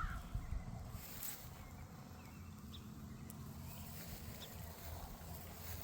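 A crow caws once right at the start. Then there is quiet outdoor ambience with a steady low rumble and a few faint ticks.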